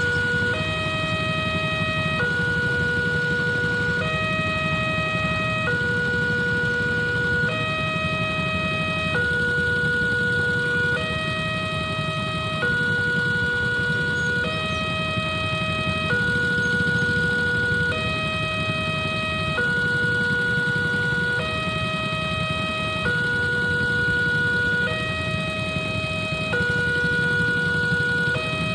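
Railway level-crossing warning alarm sounding with the barrier down: an electronic two-tone signal alternating steadily between a lower and a higher pitch, each tone held a little under a second. Under it is a steady low rumble of idling motorcycles waiting at the crossing.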